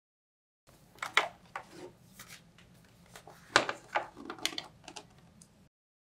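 Clicks and knocks of hands handling a precision screwdriver set and a laptop on a desk, with two louder knocks, about a second in and past the middle.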